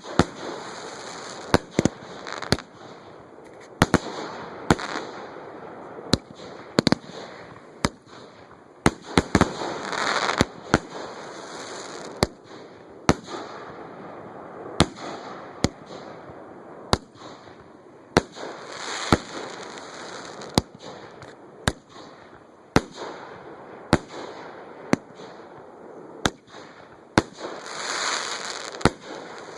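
A fireworks show heard at close range from the launch site: sharp bangs about once a second, with longer crackling rushes about ten seconds in, again around nineteen seconds and near the end.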